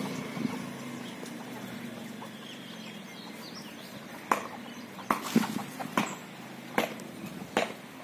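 Domestic turkeys giving short, sharp clucks, about six scattered through the second half. A low steady hum sits underneath during the first few seconds.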